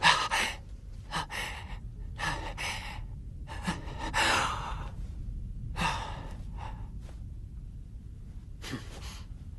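A boy's voice breathing hard in ragged gasps and sighs, about eight breaths with short pauses between them. It is the sound of anger and distress.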